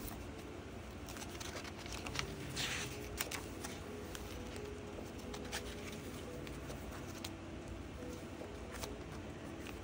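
Pages of a handmade paper journal being turned by hand: soft paper rustles and a few light flicks, with one longer rustle about two and a half seconds in.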